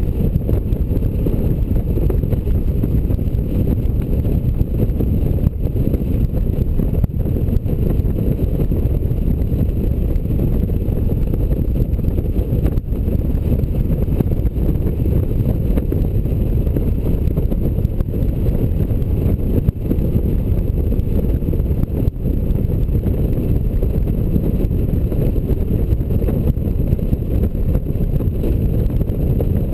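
Steady low rumble of wind buffeting the microphone on a Honda Gold Wing motorcycle riding at road speed, with engine and road noise mixed in.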